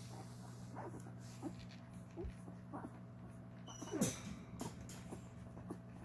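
Ten-day-old basset hound puppies nursing, giving short faint squeaks and whimpers every half second or so, with one louder falling whine about four seconds in. A low steady hum runs underneath.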